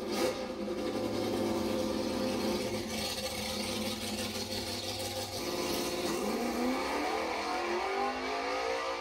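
Chevrolet Nova drag car's engine holding steady revs at the line, then revving up in a rising sweep from about halfway through as the car launches away.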